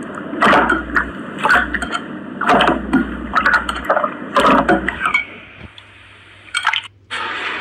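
Slime being squeezed and pressed, making wet squishing and popping sounds about twice a second, which die down about five seconds in.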